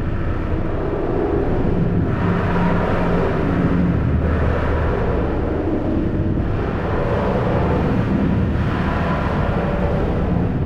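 Harsh noise music: a loud, continuous wall of mangled, distorted noise over a low drone, with pitched bands shifting through it and the noise thinning and swelling roughly every two seconds.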